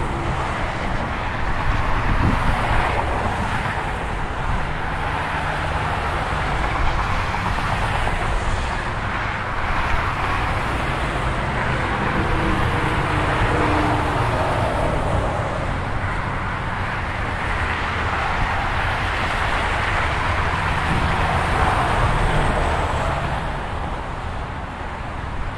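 Steady roar of freeway traffic passing close by: tyre and engine noise from a continuous stream of vehicles, swelling and easing a little as they go past.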